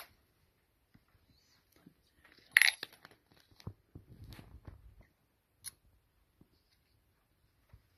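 Clicks and light metallic clinks as a hand handles and presses a small metal-cased device, the sharpest clink about two and a half seconds in, with a soft rubbing sound a little later.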